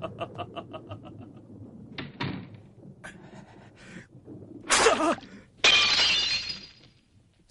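A glass shatters about five and a half seconds in: a loud crash with ringing shards that dies away over about a second, just after a short loud sound. A run of quick, even taps fades out in the first second.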